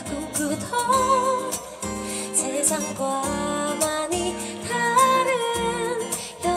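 Live acoustic pop song: a woman singing over an acoustic guitar accompaniment.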